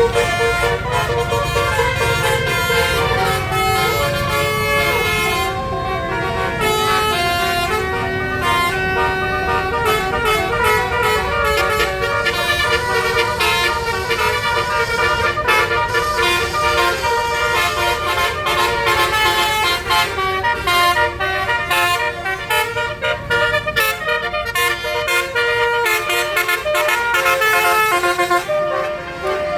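Tour bus 'basuri' telolet multi-note air horns playing a melody in quick stepped notes, over a bus engine's low rumble that is stronger in the first ten seconds.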